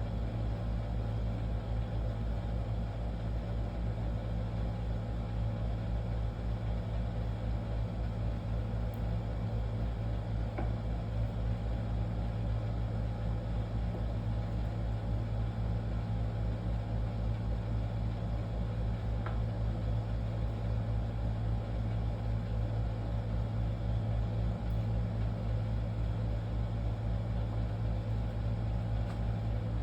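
Steady low machine hum, like a motor or fan running continuously, with a couple of faint small ticks.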